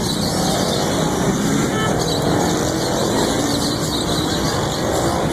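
Steady street traffic noise with faint voices in the background.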